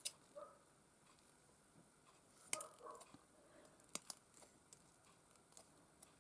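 Near silence, with a few faint clicks and rustles of small craft materials being handled, such as lace and a metal ribbon end. The sharpest click comes about two and a half seconds in.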